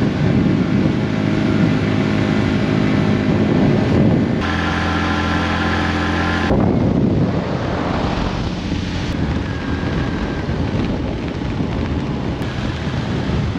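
Honda CB150 motorcycle engine running at a steady cruising pace on the road, with wind buffeting the on-board microphone. The engine note and wind change abruptly a few times between shots.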